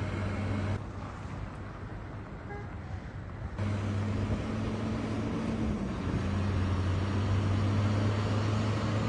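Diesel engines of semi-trailer trucks driving slowly past, a steady low hum over road noise. It drops back about a second in and swells again past the middle as the next truck comes by.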